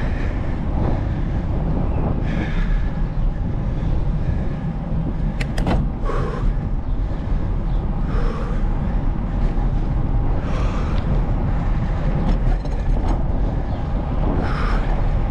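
Steady rumble of wind on the microphone and tyre noise from a bicycle rolling along the street. A few sharp clicks come about five and a half seconds in.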